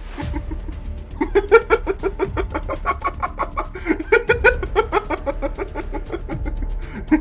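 Rapid chicken-like clucking, short pitched clucks about five or six a second, over background music.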